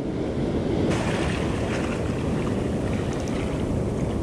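Steady rush of ocean surf washing up the sand, swelling about a second in, with wind buffeting the microphone.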